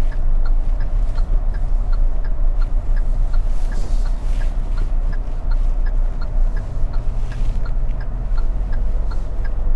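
Car turn-signal indicator ticking steadily, its right signal switched on for a turn. Under it runs the steady low hum of the engine and tyres inside the cabin.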